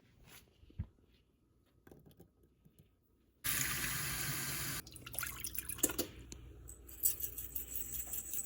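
Kitchen tap turned on suddenly about three and a half seconds in, water running into a sink, at first at full flow and then lower, with light clinks and clatter over it. Before the tap opens there are only a few small clicks.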